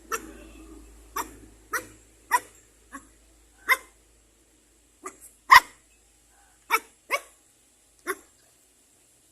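A dog barking: about a dozen short, sharp barks at irregular intervals, the loudest about halfway through.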